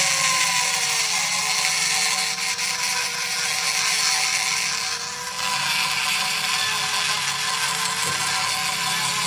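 A power tool running steadily, its motor note dipping slightly and wavering as if under load, with a high hiss over it that changes about five seconds in.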